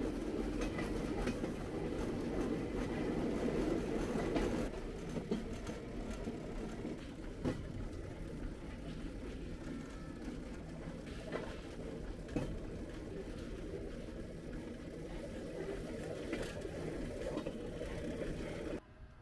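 Pedal rail bike rolling along steel rails: a steady low rumble of the wheels on the track, louder for the first four or five seconds, with occasional sharp clicks. The sound drops off suddenly just before the end.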